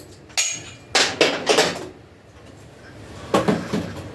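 A series of short clanks and knocks, about half a dozen, as metal parts and tools are handled while a motorcycle is being taken apart.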